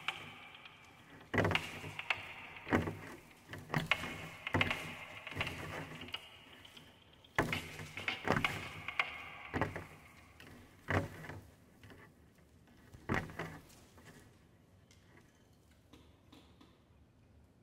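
Irregular series of sharp clicks and rattles, each with a brief rustling tail, coming roughly one or two a second and stopping about 14 seconds in, leaving faint room tone.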